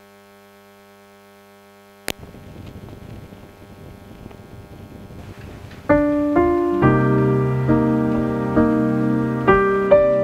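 Background piano music: a faint steady drone, a sharp click about two seconds in and a faint crackling hiss, then piano chords come in near six seconds, struck about once a second.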